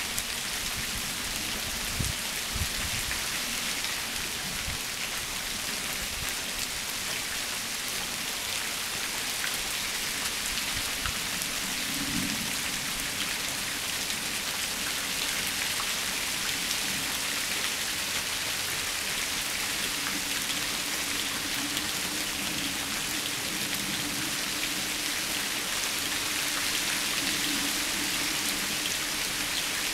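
Steady rain falling on shrubs and a ground of dead leaves: an even, continuous hiss of many drops, with no let-up.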